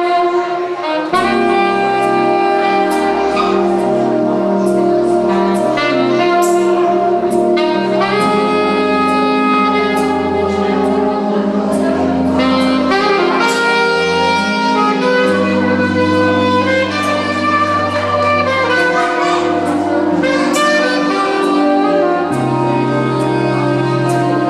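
Saxophone playing a melody over a recorded backing track. The backing track's low bass line comes in about a second in and continues under the sax.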